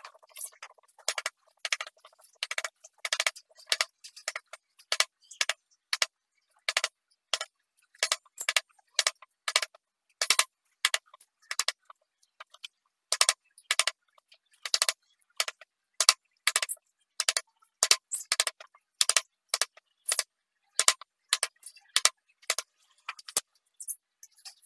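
A hand chisel cutting into wood in short, sharp strokes, irregularly about one to two a second, cutting a row of small notches into a carved wooden model.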